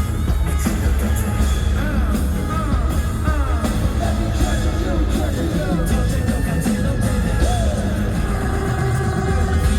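Live K-pop performance through a concert PA: group vocals sung over a loud backing track with a heavy, steady bass.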